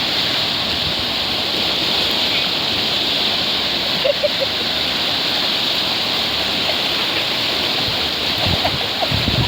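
Sea surf washing onto the shore in a steady rush, with some irregular splashing near the end.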